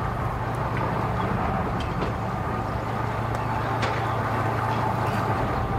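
A steady low engine hum from an engine idling, with a few faint clicks on top.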